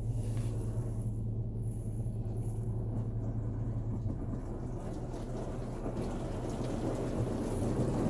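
Touchless automatic car wash spraying water over a minivan, heard from inside the cabin as a steady muffled rush over a low hum. The spray grows louder near the end.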